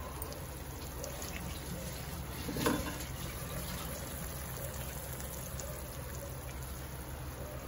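Omelette frying in oil in a pan over a low flame: a steady, soft sizzle. A brief knock about two and a half seconds in.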